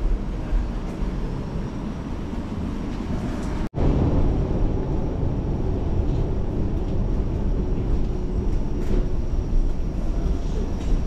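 Steady low rumble of airliner and airport background noise, broken by a sudden split-second drop about four seconds in, after which the rumble is a little louder.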